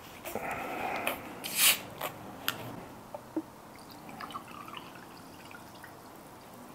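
A glass bottle of sparkling water being opened, with a short loud noisy burst as the cap comes off and a few clicks, then the water poured into a drinking glass, trickling and fizzing faintly.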